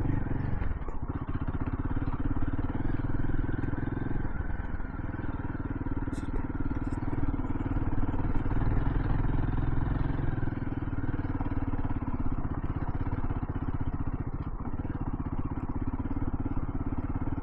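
Royal Enfield Himalayan 450's single-cylinder engine running at low, steady revs while the motorcycle descends a steep, rocky track on the clutch and brakes.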